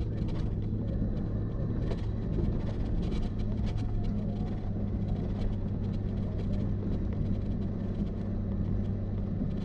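Pickup truck driving on a snow-covered road, heard from inside the cab: a steady engine and tyre rumble with a low hum, and a few brief light knocks.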